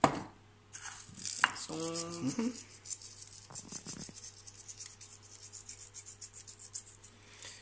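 Pepper mill grinding in a steady run of fine rasping clicks, starting about a second in. A short hummed "mm" from a person comes around two seconds in.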